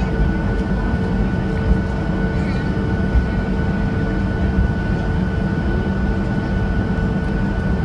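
Boeing 737's jet engines at low taxi power, heard inside the passenger cabin: a steady rumble with a few held tones over it.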